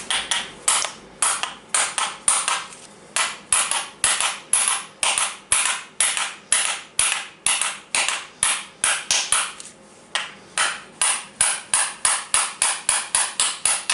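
Hammer striking again and again, about three blows a second, driving the spindle out of a Makita DGA452 angle grinder's gear housing. There is a brief pause about ten seconds in, and the blows come faster near the end as the shaft works loose.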